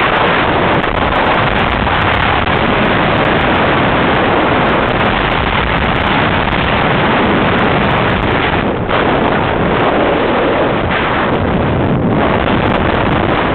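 Heavy, steady wind rushing over the microphone of a camera held outside a moving car, with the car's road and running noise under it.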